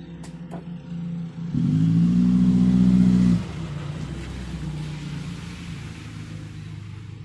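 Whirlpool top-load washing machine running its diagnostic test cycle: a couple of sharp clicks, then about a second and a half in the motor comes on with a loud, slightly rising hum for about two seconds. It settles to a lower steady hum with a rushing noise as the machine works into its spin.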